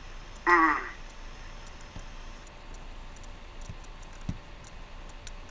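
A short vocal cry from the patient, falling in pitch, as the lanced abscess under the jaw is squeezed, followed by a few soft clicks.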